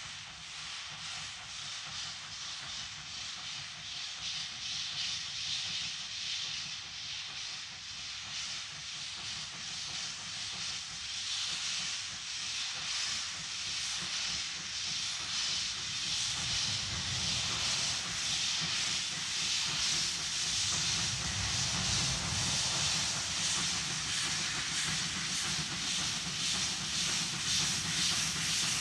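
Steam locomotive Ol49-69 pulling away with its train: a steady hiss of steam with a faint repeating beat of exhaust puffs. It grows louder throughout, with a low rumble building in the second half.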